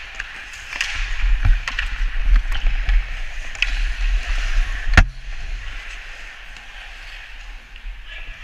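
Ice hockey skate blades scraping and carving on the ice, with scattered clacks of sticks and one sharp, loud crack about five seconds in.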